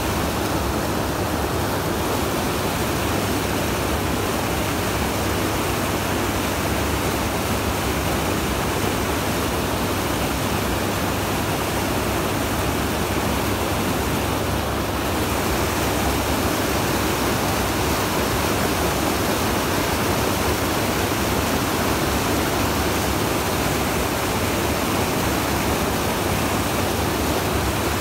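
Steady rush of churning, foaming white water.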